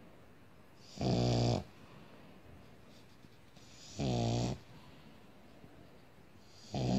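Pug snoring in its sleep: short pitched snores of about half a second each, roughly every three seconds, three in all, the last starting near the end.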